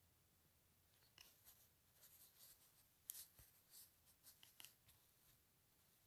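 Near silence: faint room tone with a few soft, scattered clicks and scratches.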